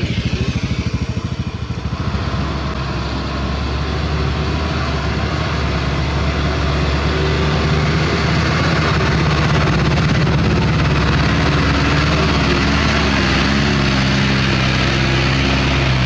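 Heavy diesel truck engines running as loaded self-loader trucks drive past on a dirt road, growing louder as the first truck comes close about halfway through, with a second truck's engine joining near the end. A motorcycle engine passes close in the first two seconds.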